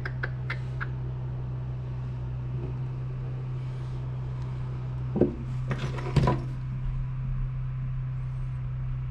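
Turbo bearing housing being handled and turned on a workbench: a few light clicks, then two short knocks about five and six seconds in, over a steady low hum.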